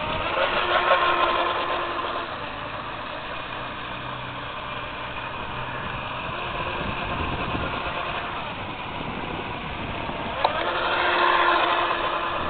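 Small electric RC boat's brushless outrunner motor and metal prop whining as the boat runs on the water, louder as it passes close about a second in and again near the end, over steady wind noise. A single sharp click about ten seconds in.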